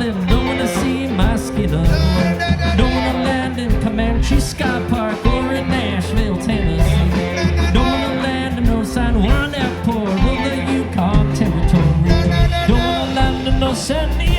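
Live rock band playing an instrumental passage of an island-flavoured song, with drums, bass, electric guitars and keyboard, and a lead line bending in pitch over a steady beat.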